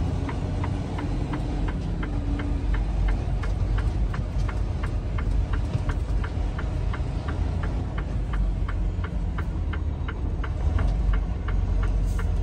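Semi truck's diesel engine rumbling steadily in the cab while it drives slowly, with the turn signal clicking evenly at about two to three clicks a second as the truck turns into a yard.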